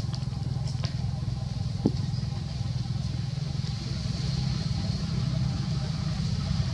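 An engine idling steadily: a low, even hum with a fast pulse, and a few faint clicks over it.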